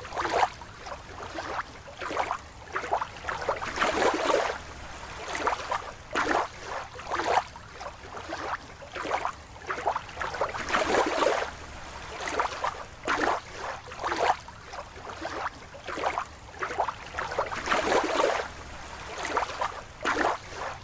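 Water sloshing and splashing in a run of irregular swishes, about one or two a second.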